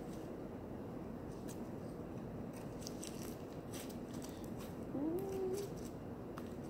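Slime being squeezed and stretched in the hands, making soft sticky clicks and crackles. A brief rising hum-like voice sound about five seconds in.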